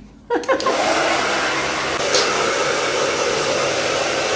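Handheld hair dryer switching on about half a second in, then running steadily as it blows through long hair.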